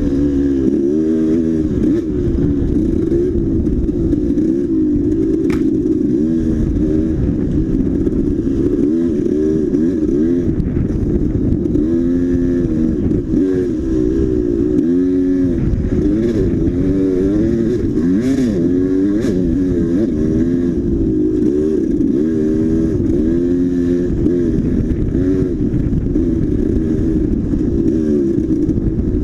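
Dirt bike engine being ridden hard, its pitch rising and falling over and over as the throttle is opened and closed through the gears. A few sharp knocks and clatters cut through, one about five seconds in.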